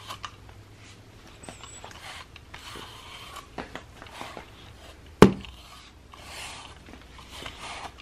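A pet brush drawn through a cat's fur in repeated soft strokes. A single sharp knock comes a little past halfway.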